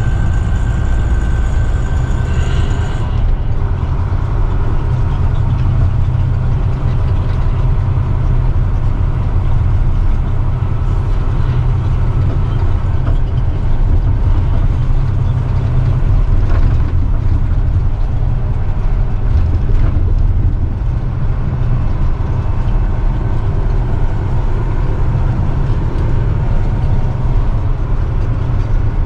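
Steady low engine and road drone heard inside the cab of a loaded Mack Granite dump truck under way. A thin high whine drops away about three seconds in.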